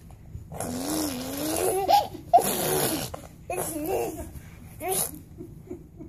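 Baby vocalizing: drawn-out coos and babbling noises that glide up and down in pitch, in several separate bursts.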